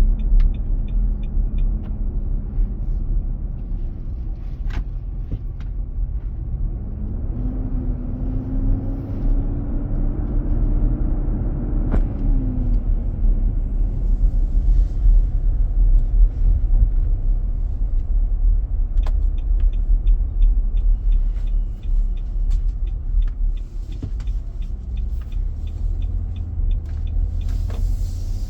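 Heavy low roar of a 2023 Nissan Armada's engine cooling-fan clutch stuck engaged while driving, heard inside the cabin over road noise; the dealer traced the noise to the fan clutch. A whining tone rises about seven seconds in, holds, and falls away a few seconds later.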